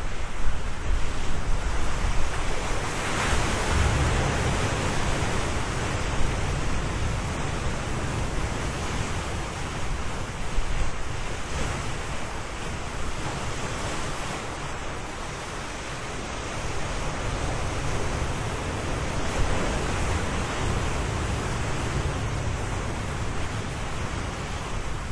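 Ocean surf: waves breaking and washing in as a continuous rush of noise over a low rumble. It surges in the first few seconds and again about two-thirds of the way through.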